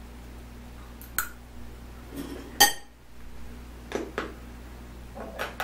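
Metal fork clinking and scraping against a ceramic dinner plate, a handful of sharp clinks with the loudest about two and a half seconds in, over a steady low hum.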